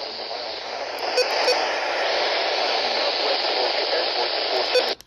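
Radio receiver static: a steady hiss with a few sharp clicks, no voice coming through. It grows louder about a second in, then cuts off suddenly near the end.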